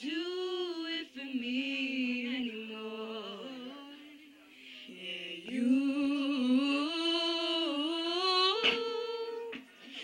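A singer's voice vocalizing a wordless melody of long, wavering held notes, in two phrases with a short dip about four seconds in.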